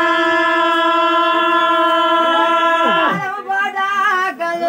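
A man singing an unaccompanied Telugu folk ballad (golla chaduvu), holding one long high note for about three seconds. The note then drops away into short, broken vocal phrases.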